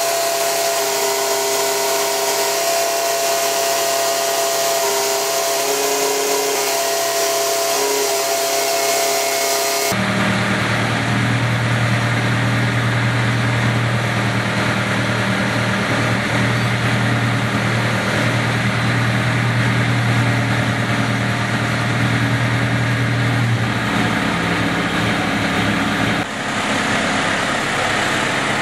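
Crawler down-the-hole drill rig running steadily while its boom and drill mast are raised. A steady whine with several held tones gives way abruptly about ten seconds in to a deeper, strong hum, which shifts again near the end.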